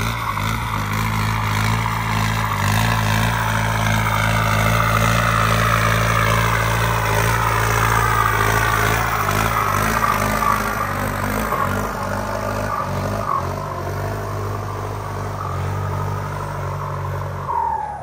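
Kubota M7508 tractor's turbocharged four-cylinder diesel working under load as it pulls a disc plow through the soil: a steady engine note with the turbo whistling above it, the whistle sliding gradually lower in pitch. Near the end the engine note drops and the turbo whistle falls away as the tractor eases off.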